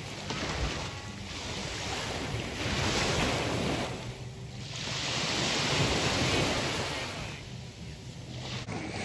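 Small sea waves washing in at the water's edge, the surf swelling and fading every three to four seconds, with wind rumbling on the phone's microphone.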